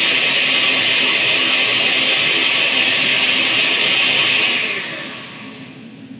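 Countertop blender running at full speed, puréeing a liquid chile-and-tomato mixture; it is switched off about four and a half seconds in and its motor winds down over the next second.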